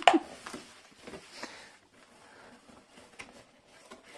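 Cardboard pizza box being folded and handled: one loud sharp sound at the very start, then scattered quieter creaks and taps.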